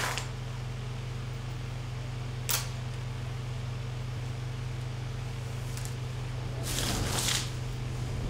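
Electric fan humming steadily, with a sharp tap right at the start, a coin clicking down onto the counter about two and a half seconds in, and a brief rustle near the end.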